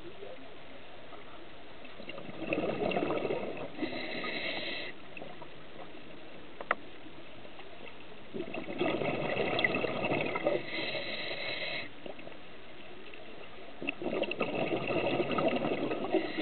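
A scuba diver breathing through a regulator, heard underwater: three breaths about six seconds apart, each a rush of bubbling exhaled air with a thin whistling hiss.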